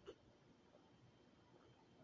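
Near silence while water is drunk from a plastic bottle, with one brief soft gulp just after the start.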